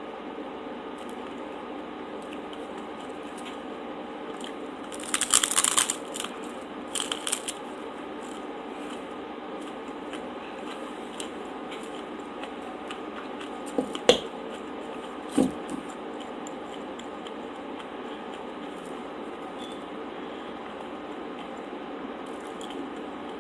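Close-miked eating: two loud crunching bites into a crisp taco shell about five and seven seconds in, then a couple of sharp clicks later on, over a steady background hiss.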